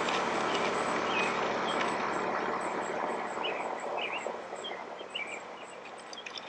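Garden ambience: small birds chirping in short scattered calls over a steady rushing noise that fades away over the last couple of seconds.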